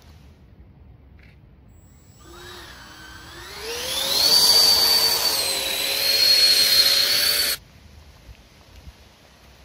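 Twin 120 mm electric ducted fans of an F-35B STOVL RC model jet spooling up for takeoff: a whine that starts about two seconds in and rises in pitch for about two seconds, then holds as a steady, loud high whine before cutting off suddenly.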